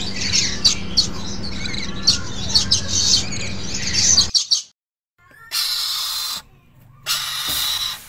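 Parrots chirping and squawking, many short high calls over a low steady hum. A little past the middle they cut off into a brief silence, followed by two short bursts of hiss.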